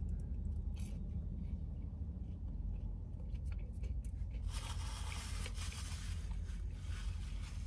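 Rustling and crinkling of fast-food packaging being handled, starting about halfway through and continuing, after a few small taps and clicks. A steady low hum lies underneath.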